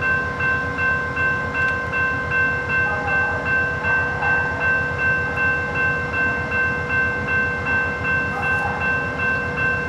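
Amtrak P42DC locomotive standing with its GE V16 diesel engine running, under a steady ringing tone that pulses about twice a second.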